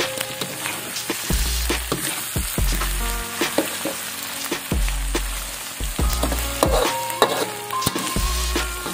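Chicken pieces in green chilli sambal stir-frying in a wok: a steady sizzle, with repeated scrapes and clinks of a metal spatula against the pan as the chicken is tossed.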